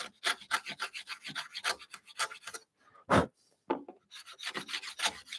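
Router plane blade shaving the cheek of a tenon, pulled across the wood in a quick series of short scraping strokes. A single louder sound stands out about three seconds in.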